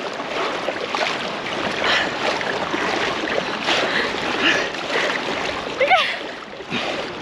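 Water splashing and sloshing as a person wades through a cold, fairly deep beach channel, with a brief high vocal squeal about six seconds in.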